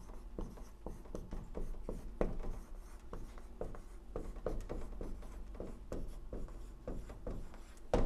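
Dry-erase marker writing on a whiteboard: a quick run of short squeaky strokes and taps as words are written.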